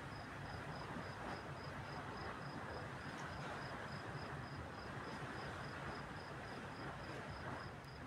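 Cricket chirping in a quick, even rhythm of about four high pulses a second, over a steady background hiss.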